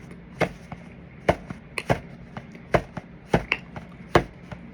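A person chewing crunchy food close to the microphone: a series of sharp crunches, about two a second at uneven spacing.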